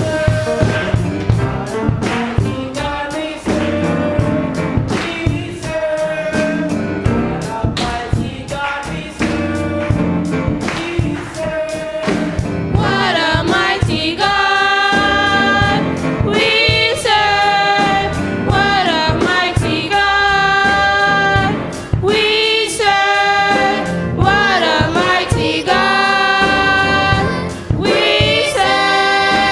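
Gospel choir singing with band accompaniment and a steady beat; the voices come in much stronger about halfway through.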